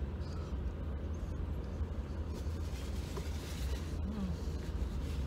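Steady low rumble of a car ferry's engines, heard inside a car parked on its deck. About three seconds in, a paper napkin rustles as it wipes the mouth.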